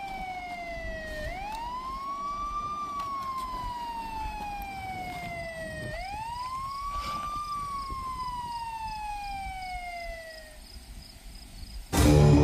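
Emergency vehicle siren wailing, its pitch rising quickly and then falling slowly over several seconds, about two full cycles, before it dies away near the end.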